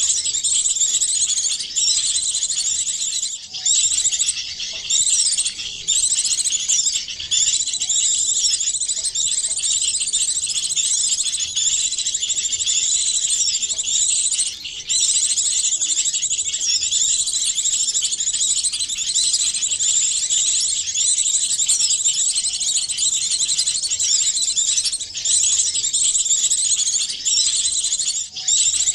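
A dense, continuous chorus of small songbirds' high-pitched chirps and twitters, many calls layered over one another: a combined bird-lure (pikat) recording meant to draw small birds in.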